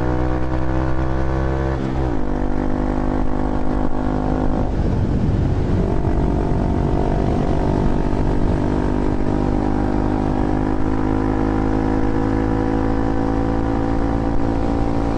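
Honda Grom's small single-cylinder motorcycle engine running under way. Its pitch drops about two seconds in, goes unsteady for a moment, then settles to a steady cruise.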